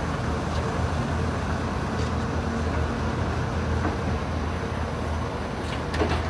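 Heavy diesel engine of earthmoving machinery running steadily, with a couple of short knocks near the end.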